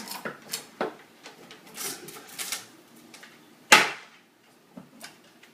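Light clicks and scrapes of a window screen being worked as the old rubber spline is pulled out of the frame's channel, with one sharp knock a little over three and a half seconds in.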